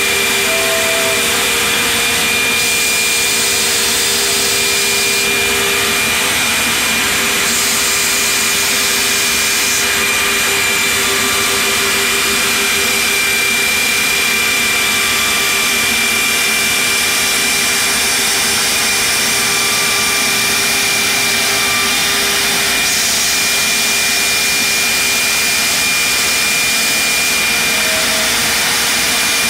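Builders Automation 5-axis CNC stair router's 7-horsepower spindle routing a stair profile in a wooden board, a steady machine noise with a high whine.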